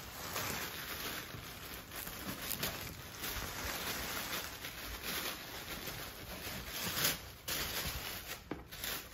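Tissue paper rustling and crinkling as hands dig through a packed cardboard box, with a louder burst about seven seconds in.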